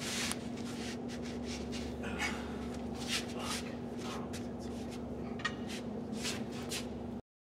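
Short scrapes, creaks and rustles as men strain on a long breaker bar against a seized control-arm joint, over a steady low hum. The sound cuts off abruptly near the end.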